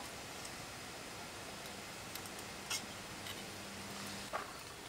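Quiet handling of a gas canister and a hose-fed camping stove being fitted together: a few faint, light clicks over low, steady background noise.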